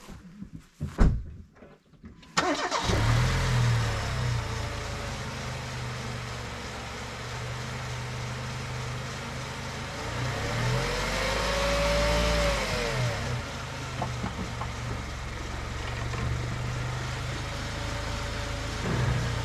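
A few clicks, then about two seconds in the four-cylinder petrol engine of a Mercedes W169 A150 starts and settles into a steady run. Its note rises and falls once around the middle.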